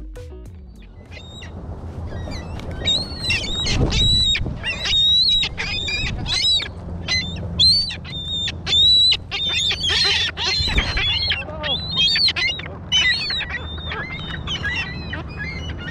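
A flock of gulls squabbling over scraps of food, calling over and over in short, harsh squawks that start about two seconds in and come thick and fast, over a steady low rumble.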